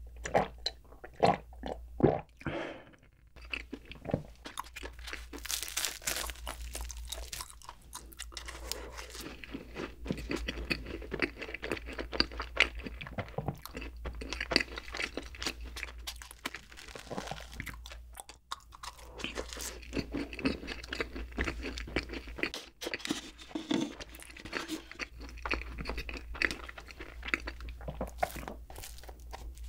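Close-miked mukbang eating sounds: a few gulps of milk about a second apart at the start, then steady chewing and biting of a soft cream puff and bread, full of small crackly mouth clicks.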